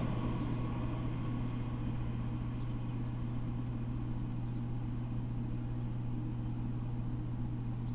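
Steady low hum under a faint hiss. The last of a passing freight train's rumble has just died away and the tracks are empty.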